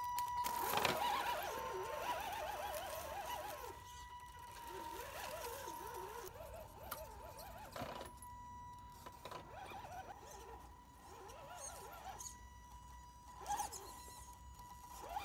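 RC crawler's brushed 540-size electric motor and speed control whining, a steady high whine with a wavering pitch that rises and falls as the throttle changes, and a few knocks as it climbs over rocks.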